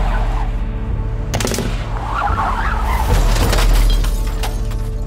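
Gunfire sound effects of an attack on a car: a quick burst of shots a little over a second in, then scattered shots about three to four seconds in, over a low droning music bed.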